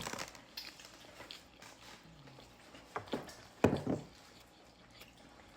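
Eating sounds from close by: a few wet mouth smacks and clicks while chewing, the sharpest about three and a half seconds in.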